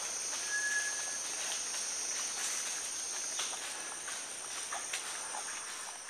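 Steady high-pitched insect chorus, with scattered crackles and rustles in the dry leaf litter as collared peccaries forage, and one short whistled note about half a second in.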